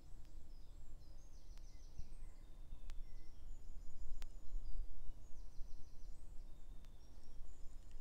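Woodland birdsong: several songbirds singing at once, with short high notes and quick rattling trills. A steady low rumble runs underneath, and a few sharp clicks are heard.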